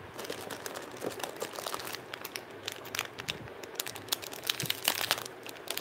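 Clear plastic jewellery packets crinkling and rustling as they are handled, with irregular sharp crackles that grow busier after about two seconds.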